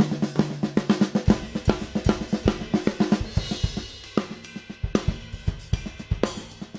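Drum kit played in a groove: a three-note flam sticking runs through sixteenth notes on the drums, with bass drum and hi-hat, and a cymbal crash about three seconds in.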